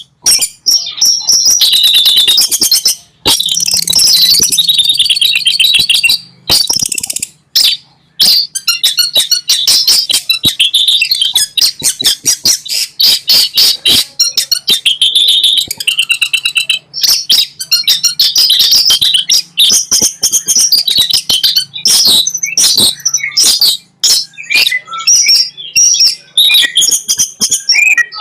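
Long-tailed shrike (cendet) singing a fast, unbroken stream of sharp chattering and clicking notes mixed with warbled phrases, with only brief pauses.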